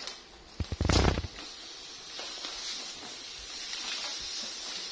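A loud thump about a second in, then plastic diaper bags rustling and scraping as they are dragged over a tiled floor.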